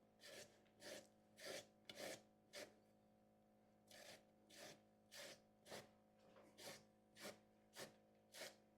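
Raw potatoes being shredded on a sharp metal grater, one rasping stroke about every half second, with a pause of about a second partway through.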